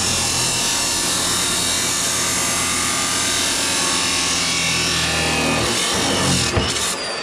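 Abrasive chop saw's cutoff wheel grinding through a rusty steel pipe: a loud, steady, harsh cutting noise over the motor's hum. The cutting noise eases about six seconds in as the cut finishes.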